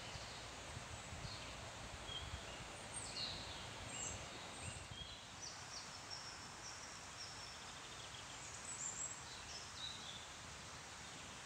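Songbirds chirping and calling in short scattered bursts over a steady hiss of trees rustling in the wind.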